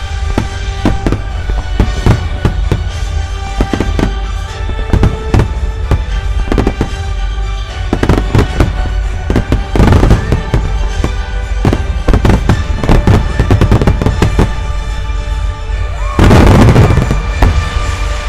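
Starmine fireworks barrage: a rapid series of aerial shell bursts going off one after another. Dense volleys come about eight to ten seconds in, and a loud, packed flurry of reports comes near the end. Music plays underneath.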